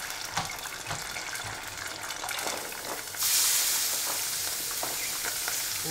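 Chicken pieces deep-frying in a pot of hot oil, crackling with small pops and chopstick taps. About three seconds in, a louder, steady sizzle starts as chopped ingredients are scraped into a hot skillet.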